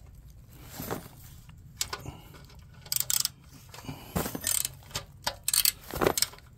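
Ratchet wrench clicking in short, irregular runs as a 10 mm bolt on a motorcycle exhaust clamp is loosened.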